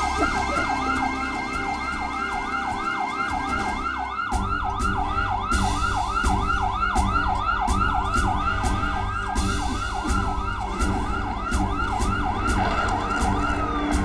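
Fire engine siren sounding in a fast yelp, about three sweeps a second, with a slower wailing glide over it at the start and again about two-thirds of the way in. A heavy truck's engine runs low underneath from about four seconds in.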